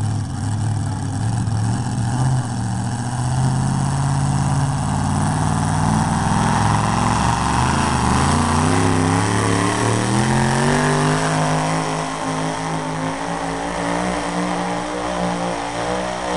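A modified pulling tractor's engine running hard at full throttle as it drags the weight-transfer sled down the track. Its note holds steady at first, dips about eight seconds in, then climbs steadily in pitch as it revs up.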